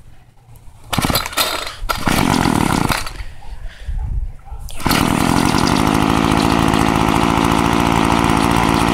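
Old Homelite small two-stroke engine, fitted with a muffler taken from a Ryobi engine, cold-started by pull cord: it fires and runs briefly about a second in, falters, then catches about five seconds in and keeps running steadily.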